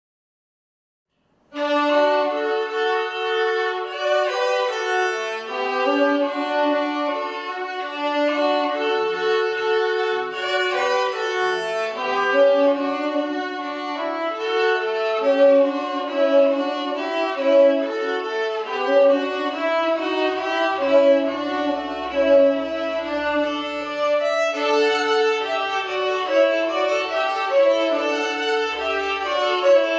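Two violins playing a duet together, two melodic lines at once. The playing starts suddenly about a second and a half in.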